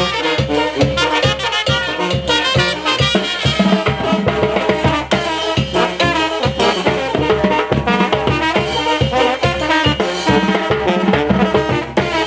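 Live Mexican brass banda playing: trombones and trumpet carry the tune over a tuba, while the tambora bass drum, tarola snare drums and cymbals keep a steady beat.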